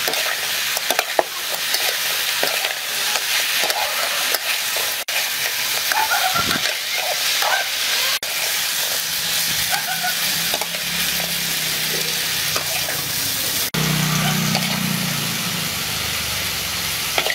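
Crispy pork and greens stir-frying in a wok: a steady sizzle, with the metal spatula scraping and tossing against the pan. A low hum joins in about halfway through and gets stronger near the end.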